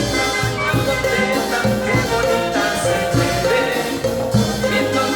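Peruvian brass band playing an instrumental passage of cumbia: held horn melody lines over a steady cumbia beat of bass and percussion.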